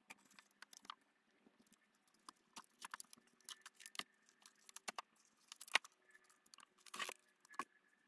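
Irregular light clicks and crackles, with a sharper snap a little before six seconds and a short cluster of louder clicks near seven seconds.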